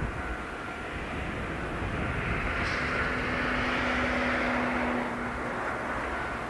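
Strong gusting wind buffeting the microphone, swelling about two seconds in, over a steady mechanical hum with a steady low tone partway through.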